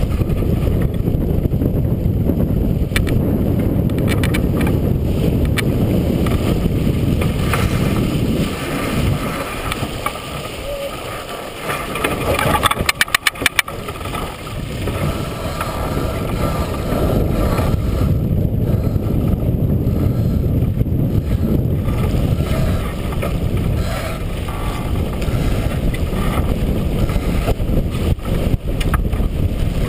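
Wind buffeting the microphone and water rushing along the hull of a T-10 racing sailboat under sail. The wind noise eases for a few seconds as the boat comes about, and a rapid run of clicks from a winch ratcheting as the sheet is hauled in comes about halfway through.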